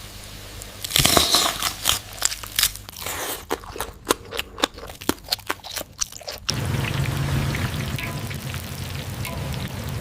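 Crunching of crispy fried gorengan fritters: a dense run of sharp crackles for about five seconds. About two-thirds of the way in this gives way to a steady hiss with a low hum.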